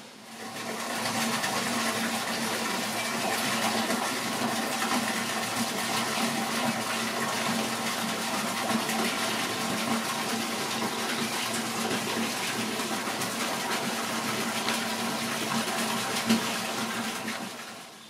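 Steady rush of falling water, as at a small waterfall. It cuts in about half a second in and stops shortly before the end.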